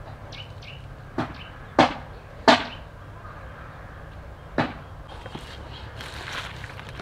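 Knife chopping pineapple: four sharp chops at uneven spacing, the loudest about two and a half seconds in.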